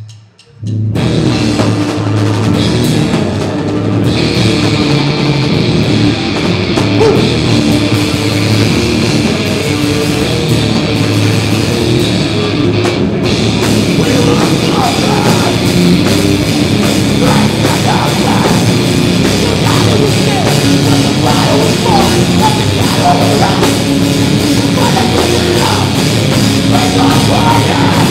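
A heavy rock band kicks in live about a second in: distorted electric guitar, bass and drum kit played loud. A vocalist shouts into the microphone over it in the later part.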